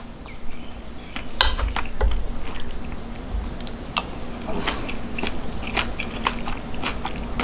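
Close-up eating sounds: a person chewing a mouthful of rice, with scattered sharp clicks from the mouth and from a metal spoon against the plate.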